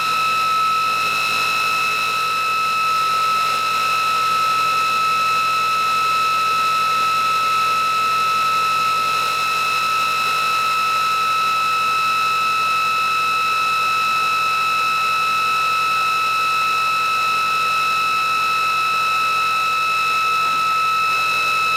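ReGenX prototype electric motor-generator running in motor mode at a steady speed of about 5,700 RPM with no load, giving a steady high-pitched whine with overtones that does not change in pitch or level.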